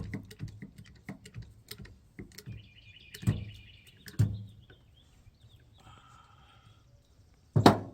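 Irregular small clicks and taps of hand tools and wire connectors being handled while crimping, with one louder sharp knock near the end.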